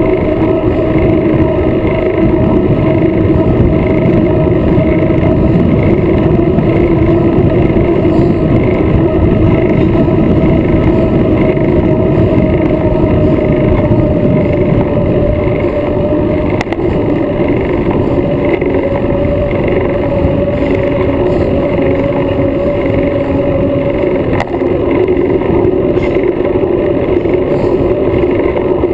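Loud wind rush on the microphone of a bike-mounted action camera while riding, with a steady droning hum underneath that drifts slowly in pitch.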